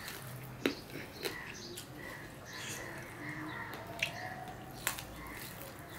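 Fingers mixing rice and curry on a steel plate, with wet squishing sounds and chewing, punctuated by four sharp clicks.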